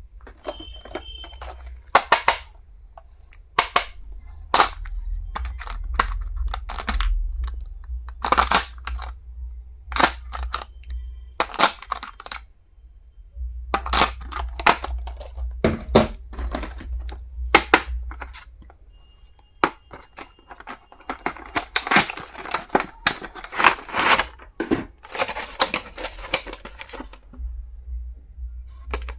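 Stationery and its packaging being handled during unboxing: irregular sharp clicks and taps, with plastic wrapping crinkling and tearing, busiest in a long stretch near the end.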